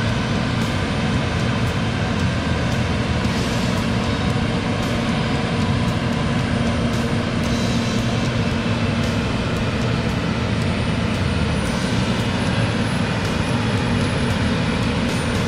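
Heavy farm machinery engine running steadily, with an even drone and no change in speed.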